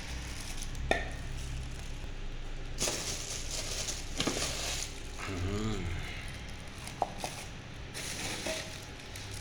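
Plastic packaging crinkling in bursts and hard plastic parts clicking and knocking as mixer-grinder jars are unpacked from their box.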